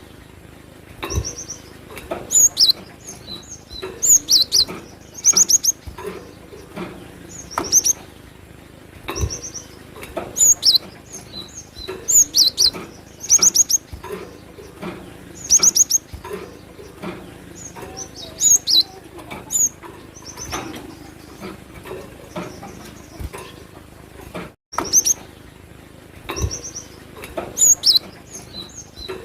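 Cinereous tit singing: short, quick phrases of high, clear notes repeated every second or two.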